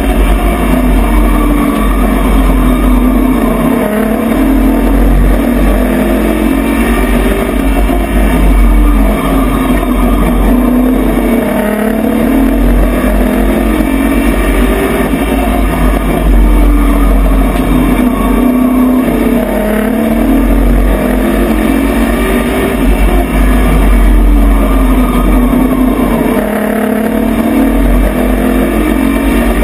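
Pro truck race engine heard from inside the cab at racing speed, its pitch rising and falling over and over as the truck accelerates and lifts around the oval, with wind and chassis noise over it.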